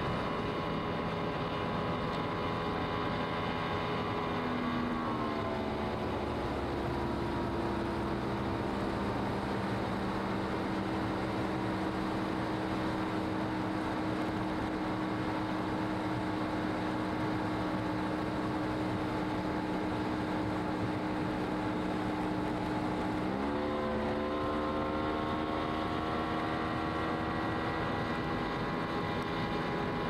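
Motorboat engine running under way, with a steady rush of wind and water. About five seconds in the engine note falls to a lower, steady pitch as it slows, then climbs back up about twenty-four seconds in.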